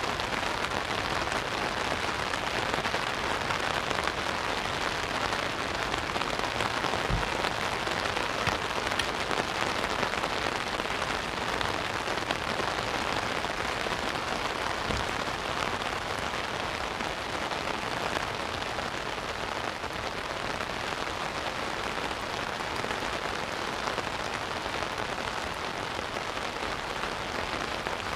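Steady rain falling on an umbrella overhead and on the sea: an even hiss.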